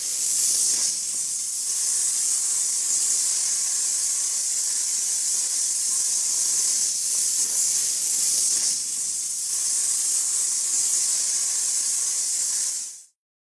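A steady high hiss, starting abruptly and cutting off abruptly after about thirteen seconds.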